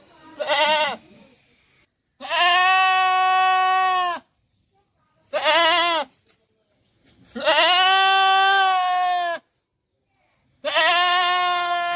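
Goat bleating: five loud calls, two short wavering ones and three long drawn-out ones of about two seconds each.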